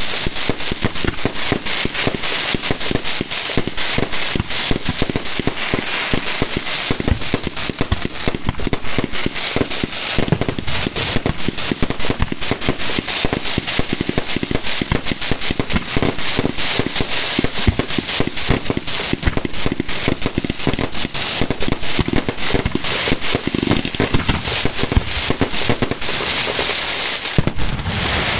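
Fireworks display at close range: a dense, unbroken barrage of rapid crackling and bangs.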